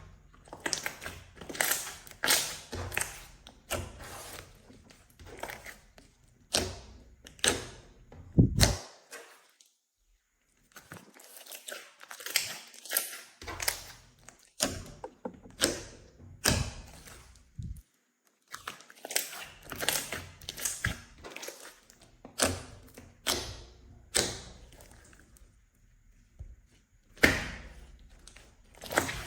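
Slime being squeezed and kneaded by hand: irregular sticky crackles and pops in quick clusters, stopping briefly twice.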